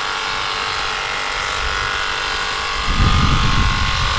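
Cordless battery pressure washer running with a steady whine from its pump motor, under the hiss of foam-cannon spray hitting a car wheel. A low rumble joins about three seconds in.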